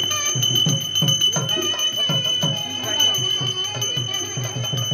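Puja hand bell ringing continuously with a steady high tone, over voices and a rhythmic low beat about two strokes a second.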